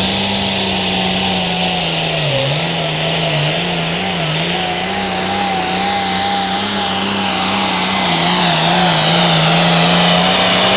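Turbocharged diesel engine of a limited pro stock pulling tractor running hard under load, its pitch dipping briefly about two seconds in and wavering, with a high whine over it. It grows louder near the end.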